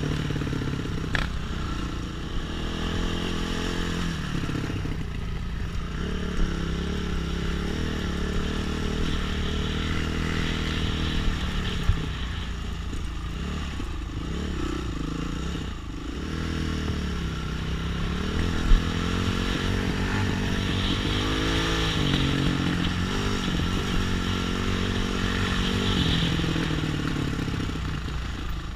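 Off-road trail motorcycle engine running under load, its pitch rising and falling again and again as the throttle opens and closes over rough ground. A few sharp clicks cut through it.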